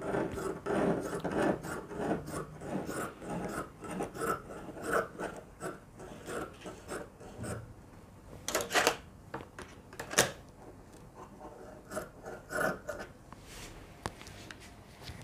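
Scissors cutting through sheer fabric: a run of short snips with fabric rustling over the first half, a couple of sharper clicks near the middle, then fainter snips and rustles.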